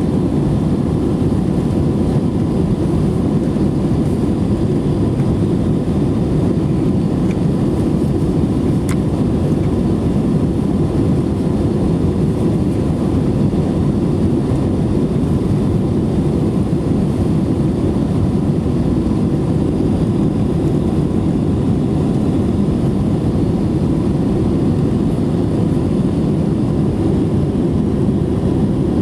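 Steady cabin noise inside an Airbus A321 in flight: a constant deep rush of engine and airflow noise with a faint steady hum over it.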